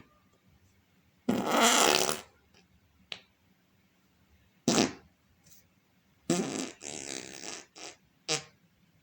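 A string of fart sounds separated by short silences: a long, loud one about a second in, a few brief ones, and a longer wavering one followed by two quick short ones near the end.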